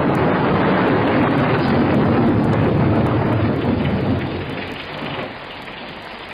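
Thunderstorm sound effect: a loud, deep rushing roll of thunder and rain that eases off over the last two seconds.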